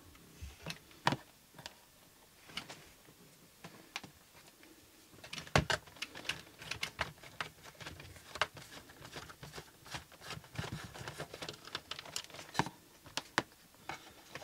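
Irregular small clicks and taps of a screwdriver and fingers on the robot vacuum's plastic fan motor cover as its screws are taken out, coming thick and fast in the second half.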